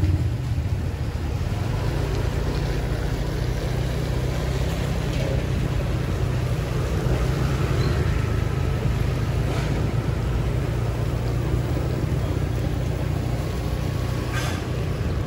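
Steady travelling noise of a vehicle moving along a rain-wet street: a continuous low engine rumble with an even hiss over it.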